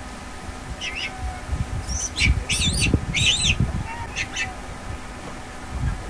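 Macaques giving a run of short, high-pitched squeals, bunched between about two and four seconds in, over a low rumble.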